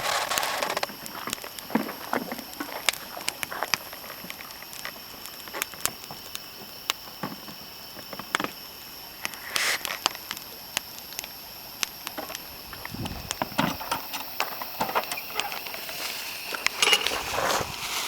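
Wood fire crackling, with sharp pops and snaps at irregular intervals.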